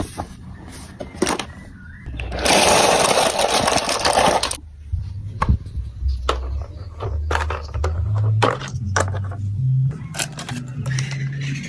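Glass marbles clicking and rattling through plastic marble run building-block track, with a loud continuous rattling rush a couple of seconds in. In the second half a low hum that steps up and down in pitch sits under the clicks.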